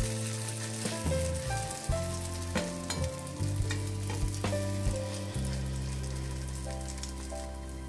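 Vegetable oil sizzling in a frying pan as grated pumpkin and potato fritter batter fries. A metal spoon clicks and scrapes against the pan several times as the batter is spooned in and pressed flat.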